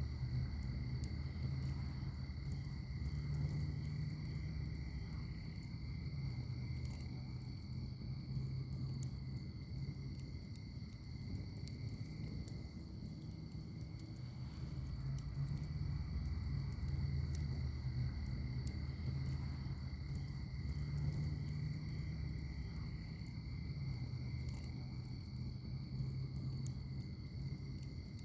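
Wood fire burning in a fire pit: a low rumble of flames that swells and eases, with scattered small crackles and pops. A steady high-pitched tone runs underneath.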